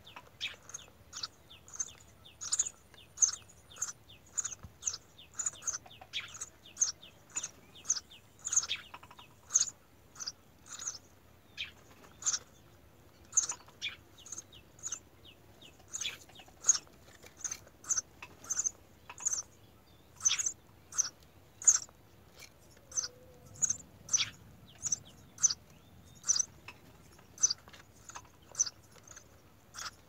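Eurasian tree sparrows chirping at a nest: a steady run of short, sharp chirps, about two a second.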